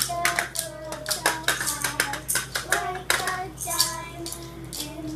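Children singing a nursery song in unison, with a steady beat of hand percussion struck along with the tune.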